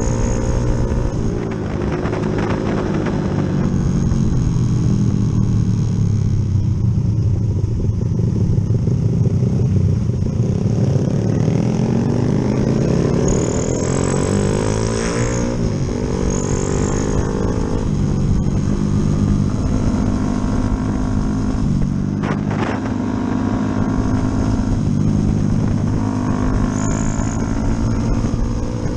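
Yamaha Jupiter MX's single-cylinder four-stroke engine, bored up to a 72 mm piston, being ridden hard. It revs up and eases off again and again, its pitch rising and falling several times, with one sharp click about three-quarters of the way through.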